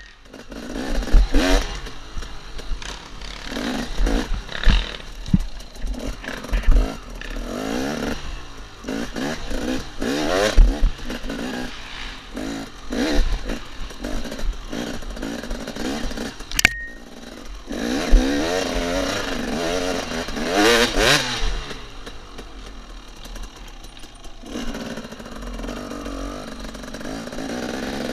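KTM 250 XC two-stroke dirt bike engine revving hard and backing off again and again, with knocks and clatter as the bike bounces over a very rough, rutted trail. Near the end it settles to a steadier, lower run.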